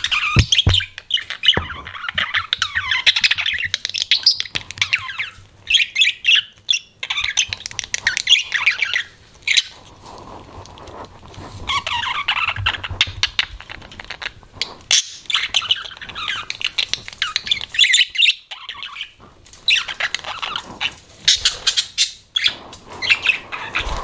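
Budgerigars chattering and warbling in rapid bouts, broken by short pauses about ten and eighteen seconds in, with sharp clicks between the bouts.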